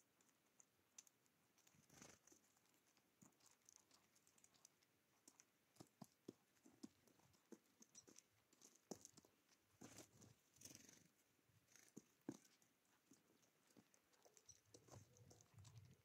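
Faint, irregular clicks and taps of feral pigeons pecking seed from a wooden feeder tray.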